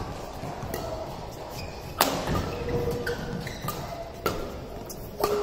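Badminton rackets striking a shuttlecock in a fast doubles rally: a string of sharp hits, the loudest about two seconds in. Short squeaks of court shoes on the mat come between the hits.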